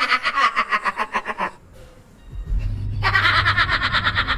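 Hearty, rapid laughter for about a second and a half, a short lull, then a low background music bed comes in and more laughter runs over it.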